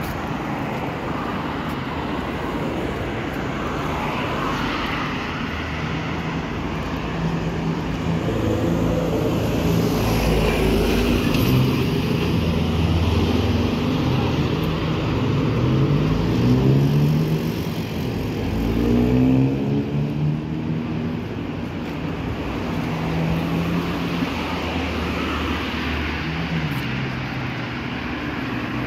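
City street traffic: cars passing, with engine notes rising in pitch several times through the middle as vehicles accelerate.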